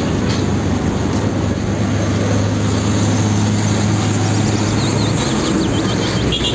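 Large fuel tanker truck on a road, its diesel engine running with a steady low hum over road noise. There are short high chirps near the end.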